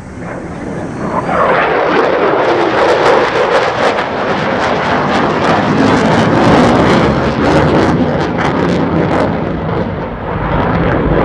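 Navy fighter jet's engine noise as it passes: it builds over the first second or two into a loud, crackling rumble that holds, dips briefly near the end and swells again.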